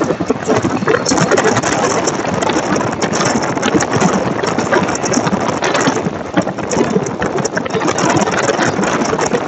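Steady rushing road and wind noise with motorcycle engine running underneath, picked up by a true-wireless earbud's microphone while riding a motorcycle.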